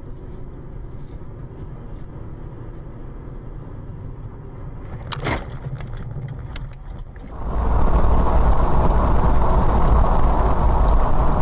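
Dashcam recording from inside a moving car: a steady low rumble of engine and tyres on the road, with one brief sharp knock about five seconds in. About seven seconds in it cuts to a much louder, steady road and wind roar as a car drives at speed on a highway.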